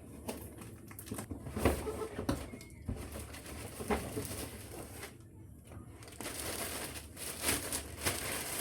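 Handling noises while unboxing a cycling helmet: scattered knocks and clicks, then rustling of packaging about six seconds in.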